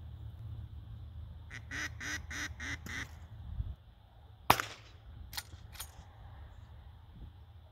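A duck call blown in a quick series of about six quacks, then a single loud shotgun shot about a second and a half later, followed by two fainter sharp cracks.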